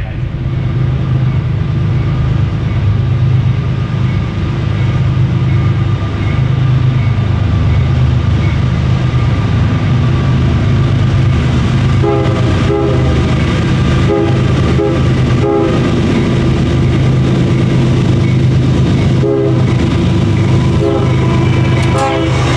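CSX diesel freight locomotives approaching with a steady low engine drone, and a grade-crossing bell ringing early on. From about halfway through, the lead locomotive's horn sounds a chord in a series of short blasts, then a few more near the end as the train reaches the platform.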